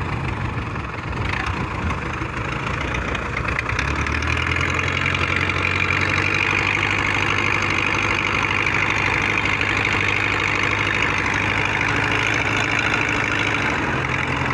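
Open inboard engine of a small wooden fishing boat running steadily at low revs, with a steady low hum and hiss, growing louder about four seconds in.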